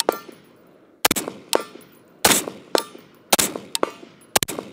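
AR-15 rifle firing a string of shots, about ten, mostly in quick pairs roughly half a second apart with about a second between pairs, each shot sharp with a short echo.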